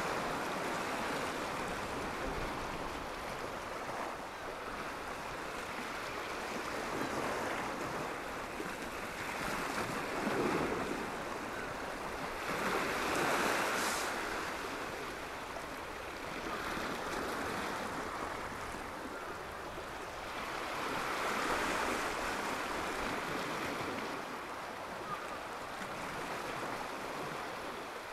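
Sea waves washing against a rocky shore, a steady wash that swells louder a few times.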